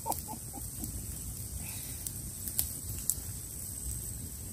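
Small open wood fire burning with a few sharp crackles and pops over a low steady background. A short run of repeated sounds fades out within the first second.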